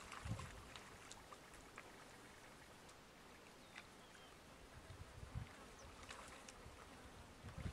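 Near silence: faint outdoor ambience with a few soft ticks and low bumps.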